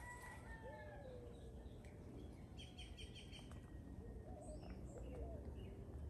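Faint calls of several garden birds: short high chirps, a quick run of rapid repeated notes about two and a half seconds in, and soft sliding whistles.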